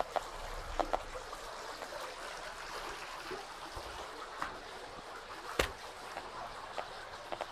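Geiger counter clicking from the speaker of a survey meter with a pancake probe held against granite: irregular clicks, roughly one or two a second, with one sharper click a little past halfway. The count is higher than the background level, from the granite's natural radioactivity. Behind it runs the steady rush of a stream.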